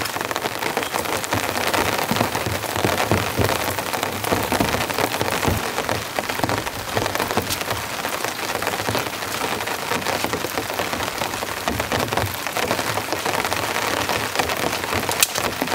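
Torrential rain, an extreme deluge: a steady, dense hiss of downpour with many sharp ticks of individual drops striking.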